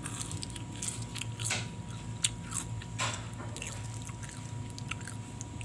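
Close-up crunching and chewing of crunchy food, in irregular bites with a sharp crunch a couple of seconds in.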